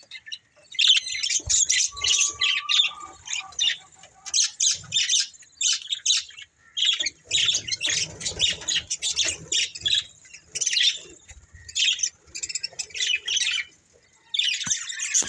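Budgerigars chattering: fast, high chirps and squawks in runs of a second or several, broken by short pauses.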